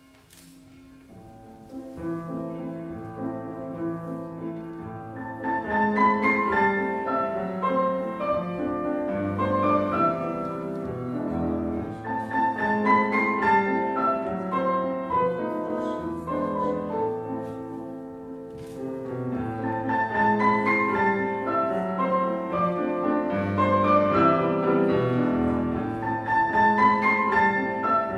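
Piano four hands: two pianists playing a classical piece together on one grand piano. The music starts softly about a second in, grows louder, eases off briefly past the middle and swells again.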